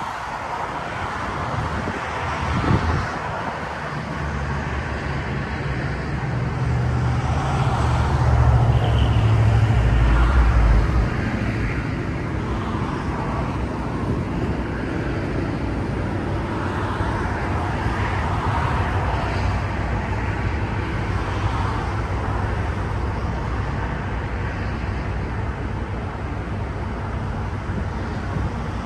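Steady outdoor rumble of road traffic, swelling to a louder, deeper rumble from about 7 to 11 seconds in.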